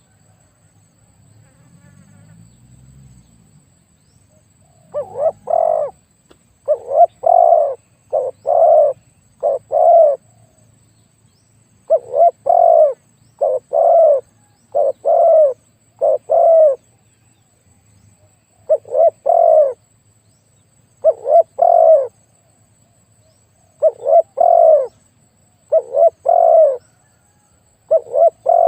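Spotted dove cooing, a big-voiced bird giving repeated phrases of two to four deep coos, beginning about five seconds in.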